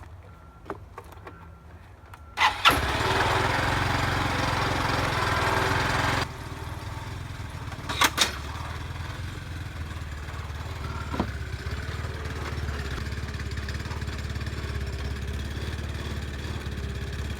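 Honda Elite 250 scooter's single-cylinder four-stroke engine starting about two and a half seconds in and running at a loud fast idle for about four seconds, then dropping suddenly to a quieter steady idle. A couple of sharp clicks come about eight seconds in.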